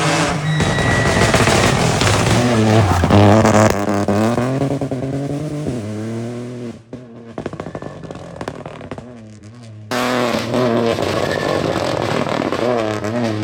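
Peugeot 208 Rally4's turbocharged three-cylinder engine at stage pace, revving hard and shifting up and down through the gears. About seven seconds in, the driver lifts off and the engine drops back amid a rapid crackling for a few seconds. Then, about ten seconds in, it comes back hard on the throttle.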